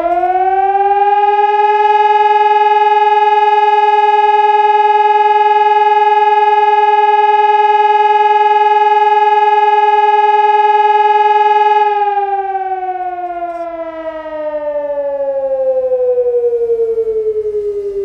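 Hörmann ECN 1200 electronic civil-defence and fire siren sounding one tone of the fire-alarm signal as a test: it winds up quickly, holds a steady loud note for about ten seconds, then slowly glides down in pitch.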